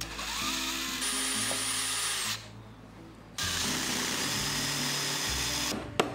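Power drill with a twist bit boring into wood, running steadily in two stretches of about two seconds each with a short pause between. A sharp hammer knock comes near the end.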